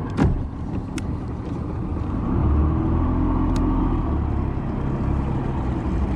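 Small fishing boat's outboard motor running, its hum rising as it throttles up about two seconds in, with a sharp knock just after the start.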